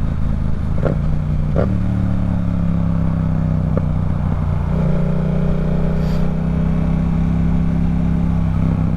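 Yamaha R7 motorcycle's parallel-twin engine running at steady revs while riding, stepping up in pitch about a second and a half in, with a few brief clicks.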